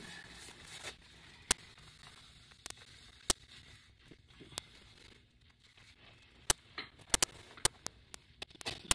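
Paper towel crinkling as it is handled and wiped along the rim of a silicone mold to soak up spilled resin, with scattered sharp little clicks, more frequent in the last few seconds.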